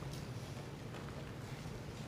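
Quiet room tone of a large hall: a steady low hum under a faint even hiss, with no distinct event.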